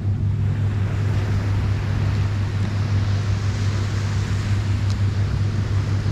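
Surf washing on the beach over a steady low rumble of wind on the microphone, the wash of the waves swelling a little in the middle.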